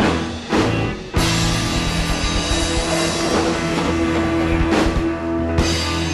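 Rock and roll band of drums, electric guitar and bass playing a held, ringing chord, with drum and cymbal hits about a second in and near the end: the closing bars of a song.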